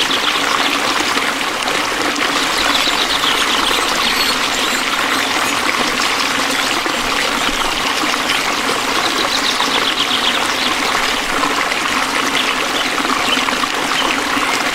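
A stream of water flowing and trickling steadily. A high, fast-pulsing trill comes and goes above it a few times.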